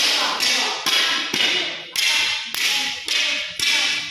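A row of wooden drill staffs struck on a tiled floor in unison, a sharp clatter about twice a second, seven or eight times, stopping at the end.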